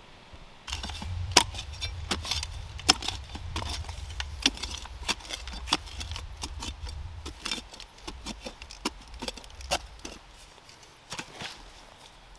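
Digging out a Dakota fire pit with a hand tool: a run of sharp chopping and scraping strikes into the ground, about two a second, starting about a second in and thinning out near the end.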